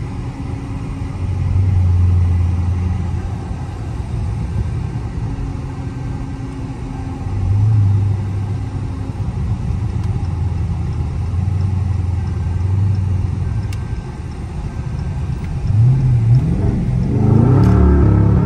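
Dodge Charger Scat Pack's 392 HEMI V8 (6.4 L) rumbling, heard from inside the cabin while driving, swelling several times under throttle. It gets louder with rising pitch under harder acceleration near the end.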